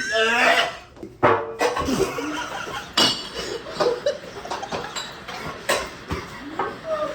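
Several people's voices overlapping, with laughter and exclamations, and a few sharp knocks.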